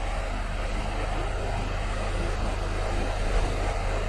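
Steady background noise: a low, constant electrical hum under an even hiss, with nothing else happening.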